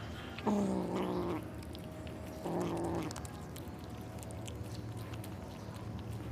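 A kitten gives two loud, drawn-out meowing calls, each under a second long and falling slightly in pitch, about two seconds apart. Faint clicks sound between them.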